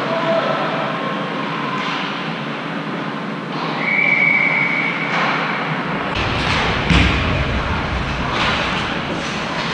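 Ice hockey game noise: skates scraping and carving on the ice throughout. A steady whistle blast lasts over a second about four seconds in, and a heavy thud comes about seven seconds in.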